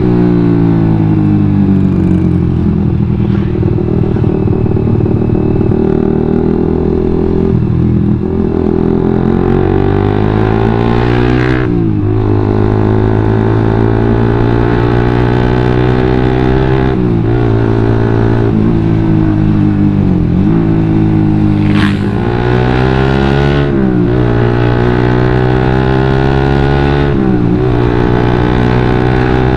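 Suzuki GSX-R150's single-cylinder four-stroke engine running loud through a WRX GP5K1 full-system aftermarket exhaust while riding. It revs up through the gears in repeated rising sweeps, each cut off by a gear change, and falls in pitch when the throttle eases off.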